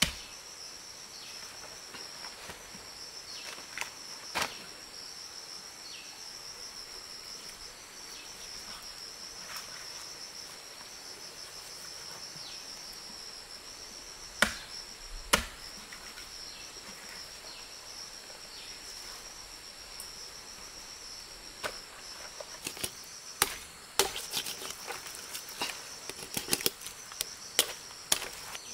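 A steady high-pitched insect chorus, with a few sharp knocks of a large knife striking the wooden log under a boar carcass: two loud ones about a second apart in the middle, then a quicker run of clicks and taps near the end as the carcass is cut.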